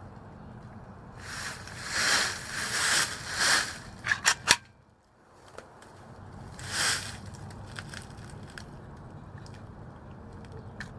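Three rapid shots from a 3D-printed handgun, about four seconds in, a fraction of a second apart. The sound dips almost to nothing for a moment just after them. Before the shots there are a few seconds of rustling noise, and another rustle comes near seven seconds.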